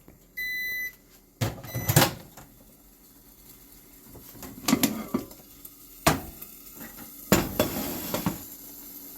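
A microwave oven gives one short electronic beep, then a microwave cooking vessel and its lid are handled, making a series of knocks and clatters.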